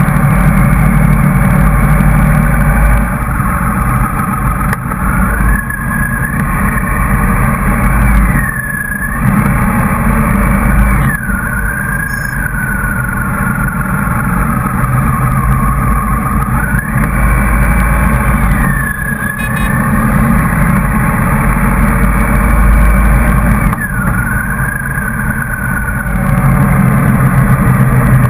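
Motorcycle riding at motorway speed, with engine and road noise running loudly throughout. The engine's pitch rises and falls several times as the throttle changes, easing off briefly about a third of the way in and again near the end.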